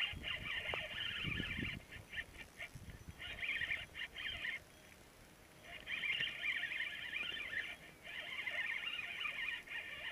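Fishing reel being cranked: a whirring buzz from the reel as the line is wound in, in spells of a second or two with short pauses.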